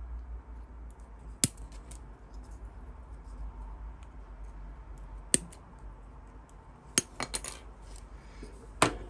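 Sprue cutters snipping plastic model-kit parts off the sprue: a handful of sharp, irregular snaps, with three in quick succession about seven seconds in.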